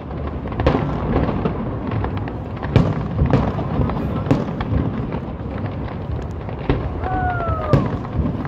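Aerial fireworks display bursting: several sharp bangs at uneven intervals over a steady background din.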